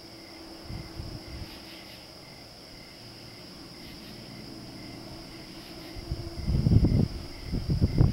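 Steady, high-pitched chirring of crickets and other night insects. From about six seconds in, louder low, irregular rumbles and thumps on the microphone come and go over it.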